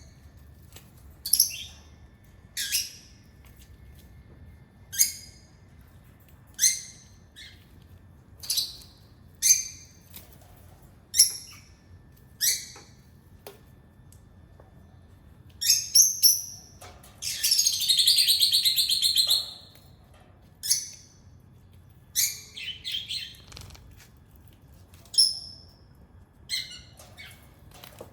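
Repeated short, high-pitched chirping calls, one every second or two, with a longer harsh, buzzy call about two-thirds of the way through.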